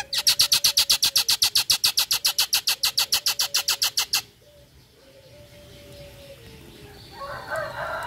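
Common myna (jalak nias) giving its rapid-fire chattering call, harsh notes at about nine a second for some four seconds, then breaking off. Softer jumbled chirps follow near the end.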